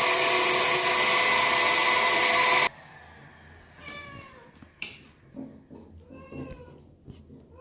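A professional pet blow dryer runs with a steady whine, then cuts off suddenly under three seconds in. After that the long-haired cat being dried meows twice, with a sharp click between the meows.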